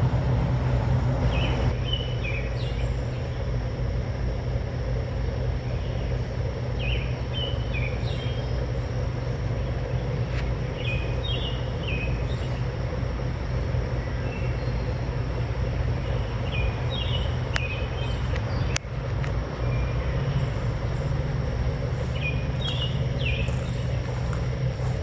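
A bird calling in short chirping phrases, repeated every few seconds, over a steady low mechanical hum.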